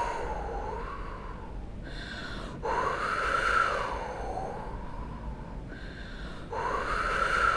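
A woman's breathy, whistling whooshes, blown like a howling storm wind. They are long blows that rise and fall in pitch, each starting abruptly. One is under way at the start, and new ones begin about two and a half seconds in and again near the end.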